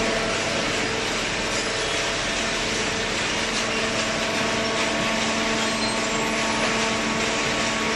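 Hydraulic baler's electric motor and hydraulic pump running steadily: a constant hum with a few steady tones over a broad hiss, unchanged throughout.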